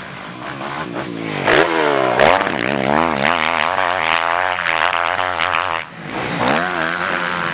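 Motocross bike engine revving hard, its pitch climbing and falling over and over with the throttle and gear changes. It drops away briefly near six seconds, then climbs again.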